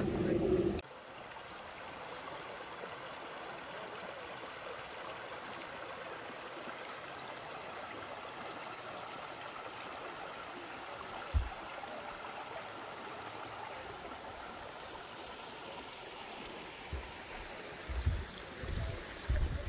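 A stream running steadily. Wind buffets the microphone with a low rumble for the first second and in short gusts near the end, and there is a single low bump about eleven seconds in.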